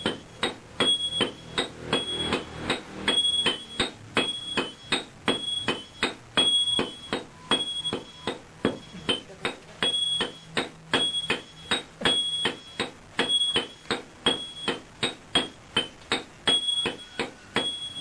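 Steady, rhythmic hammering of metal on an anvil, about two to three blows a second, many of the strikes ringing with a bright, clear tone.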